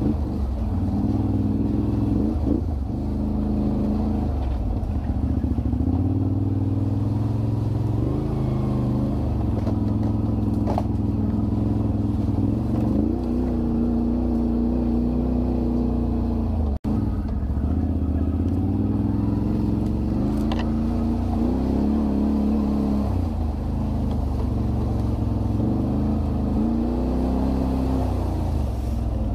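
Quad ATV engines running on a dirt trail, the pitch rising and falling as the throttle opens and closes. The sound drops out for an instant about halfway through.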